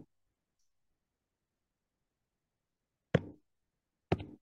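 Near silence broken by two sharp clicks, about a second apart, near the end.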